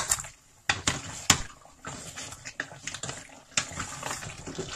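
A wooden spatula stirring and turning beef in a stainless steel pot, with several sharp knocks of the spatula against the pot, the loudest just over a second in, over the hiss of the meat sizzling.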